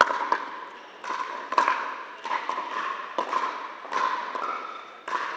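Pickleball paddles hitting the plastic ball in a rally: sharp pops about once a second, some in quick pairs, echoing in a large indoor hall.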